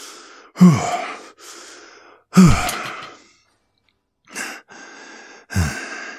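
A man sighing heavily three times, about two seconds apart. Each sigh starts with a short voiced sound that drops in pitch and trails off into a long breath out, with a quick breath in before the last one.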